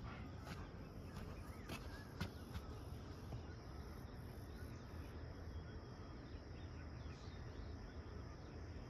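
Faint outdoor ambience: a steady high insect drone with a few scattered light clicks.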